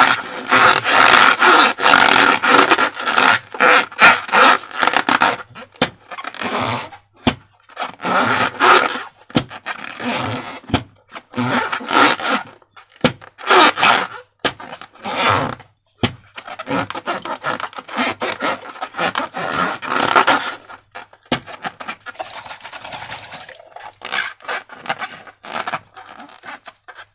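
Transparent rubber balloons and slime handled by hand: irregular rubbing and scraping strokes in bursts, separated by short pauses, with sharp clicks now and then.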